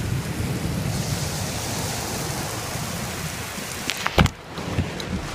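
Heavy rain falling on a car, a steady hiss. About four seconds in there are a couple of sharp clicks or knocks.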